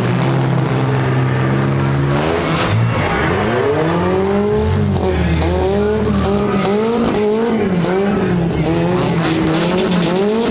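Several demolition derby cars' engines revving up and down at once, their pitches rising and falling, with a few short sharp knocks among them.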